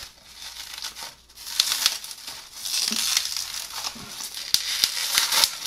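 Plastic bubble wrap crinkling and rustling in several bursts as it is pulled and peeled off a glass bottle by hand, with a few sharp crackles.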